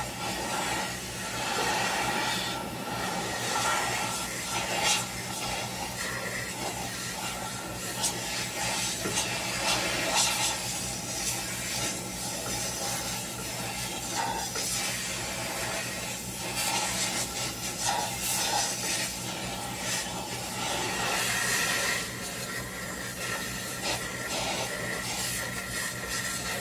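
Oxy-fuel torch hissing steadily as its flame heats a bent steel front chassis member for straightening, with scattered clicks and knocks and a low steady hum underneath.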